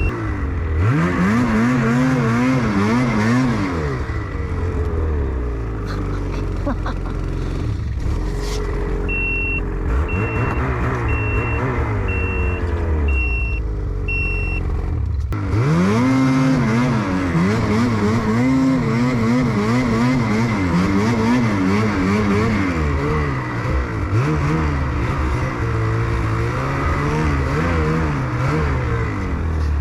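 Snowmobile engine running under load, its pitch rising and falling over and over as the throttle is worked while riding. A row of short, even electronic beeps about a second apart sounds partway through.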